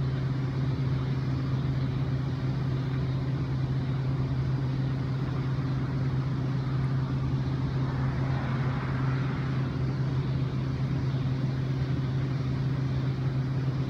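Steady low machine hum, with crickets and cicadas chirping in the background.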